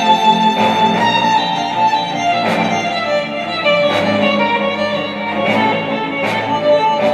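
Cinematic classical music led by violin and strings, played back through a Star Wars Millennium Falcon Bluetooth speaker.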